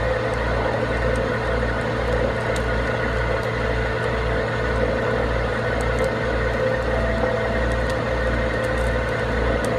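Heavy tow truck's engine running steadily, with a low throb about twice a second and a steady hum over it.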